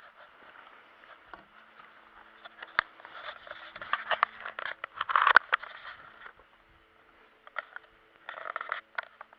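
Handling noise: irregular scraping, rustling and clicking as the camera is moved about on its mount against the wooden log rails of a hunting stand, densest and loudest in the middle, with a short rustling scrape near the end.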